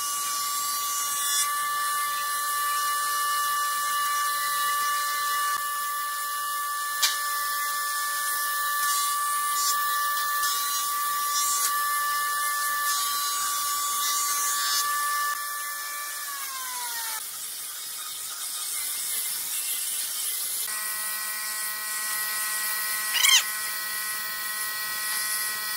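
Electric angle grinder with a sanding disc, its motor whining steadily over a hiss as the disc sands a pine tabletop. About two-thirds of the way through the whine falls in pitch and drops away, and a steady whine returns a few seconds later.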